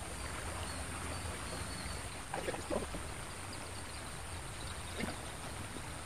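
Steady outdoor background noise beside a slow river, with a low rumble underneath. A few faint short clicks come about two and a half seconds in and again near five seconds.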